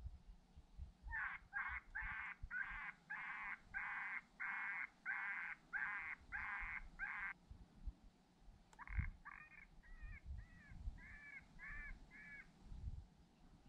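Lucky Duck Rebel electronic predator caller playing an animal call from a distance: a run of about eleven evenly spaced cries over six seconds, then a short gap and a second run of eight shorter, falling cries.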